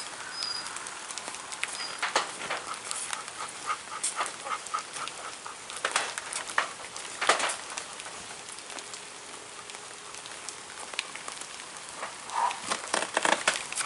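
Rain pattering on the wet tarp of a backyard wrestling ring, with scattered footsteps and knocks on the tarp, two louder knocks around the middle, and a short pitched cry about a second and a half before the end.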